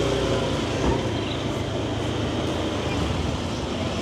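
Motor scooter engine running steadily while riding, a low even hum under road and wind noise.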